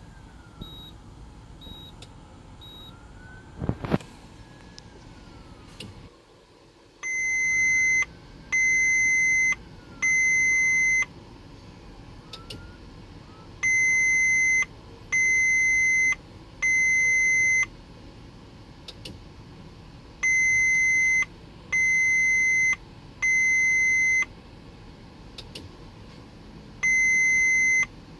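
Van instrument-cluster warning chime sounding in sets of three long, steady beeps, each set repeating about every six to seven seconds. It starts about seven seconds in and is the alert for the engine-start limitation, with a limited number of engine starts remaining. A single sharp click comes about four seconds in.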